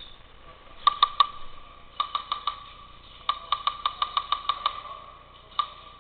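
Airsoft guns firing in short bursts of sharp cracks: three shots about a second in, four more a second later, a quick string of about nine in the middle, and a single shot near the end.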